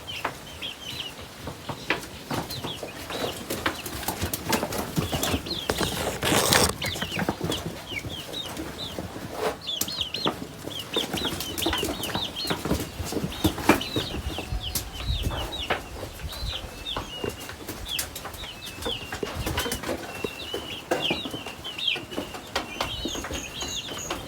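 A flock of chickens in a pen, busy at their feed, giving many short, high peeping calls with scattered clicks and taps. There is a brief louder rustling burst about six seconds in.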